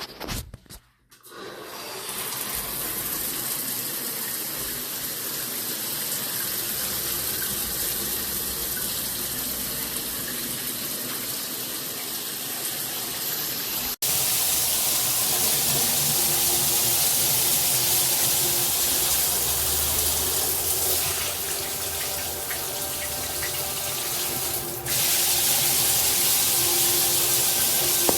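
Water spraying from a shower head, starting about a second and a half in. About halfway through it jumps abruptly to a louder, hissier spray, then dips and comes back louder again near the end.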